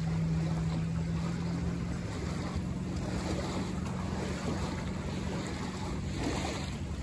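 Water slapping and splashing against a Buccaneer 18 sailboat's hull as it runs through jet ski wake under spinnaker, with wind noise on the microphone. A steady low hum fades about two seconds in.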